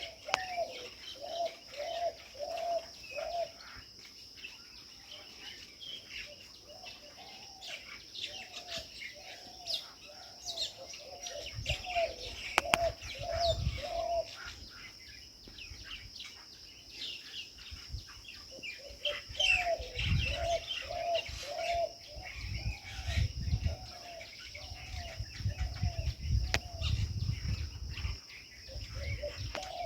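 Birds calling in a tree: one bird repeats a short low call in long even runs, about two a second, while others chirp higher. A steady high insect drone runs underneath, and wind rumbles on the microphone in the second half.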